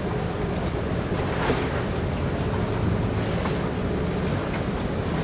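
Harbourside ambience: a steady low rumble with wind buffeting the microphone and water lapping against the moored tugboats' hulls.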